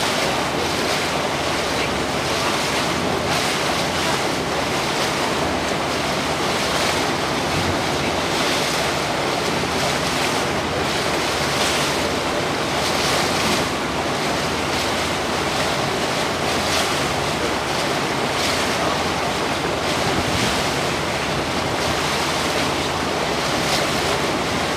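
Steady wind buffeting the microphone and water washing along a small boat's hull as it moves slowly through calm harbor water, with a low rumble underneath.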